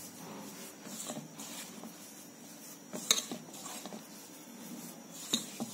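Hand rubbing ghee into maida flour in a steel bowl: a soft, dry scraping rustle of flour against steel. Two sharp clinks against the bowl, one about three seconds in and one near the end.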